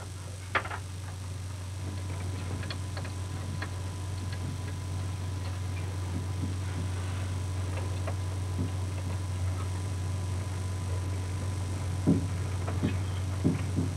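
Laboratory room ambience: a steady low hum with scattered light clicks and small knocks, and a sharper knock about half a second in and two more near the end.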